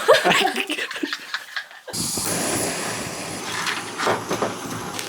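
Gas rushing steadily from a portable camp stove or gas canister. It starts abruptly about two seconds in, with a thin high whistle above the hiss.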